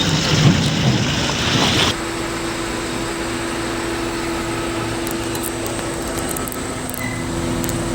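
A vehicle engine running. About two seconds in, the sound cuts abruptly to a steadier, quieter hum with a constant tone.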